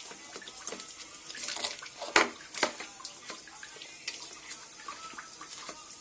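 Boiled egg and crushed eggshell being mashed and stirred in a stainless steel bowl: irregular wet squishing and scraping with scattered clicks, the sharpest about two seconds in.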